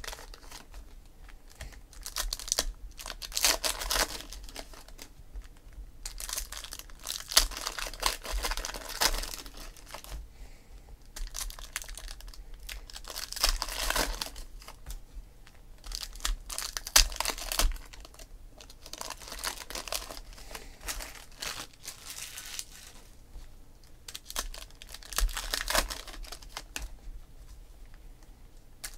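Foil wrappers of Donruss Optic football card packs being torn open and crinkled by hand, in irregular rustling bursts every second or two.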